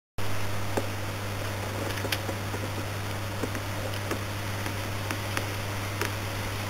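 Model train rolling slowly along the layout track: a steady low hum with irregular light clicks of the wheels over the rail joints.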